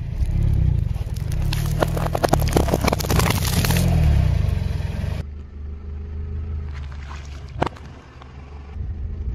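A car tyre rolling slowly over gritty asphalt with a steady low rumble while packaging is crushed under it: a dense run of crackling, crunching clicks for the first few seconds. An abrupt cut about five seconds in drops to a quieter rumble with a few sharp cracks, one loud one near the end.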